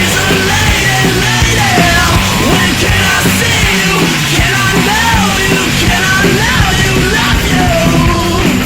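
Loud punk rock music with a yelled vocal, playing steadily.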